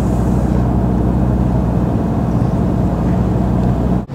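Steady road and engine noise inside a vehicle's cabin while driving on an interstate, with a low hum. It cuts off abruptly about four seconds in.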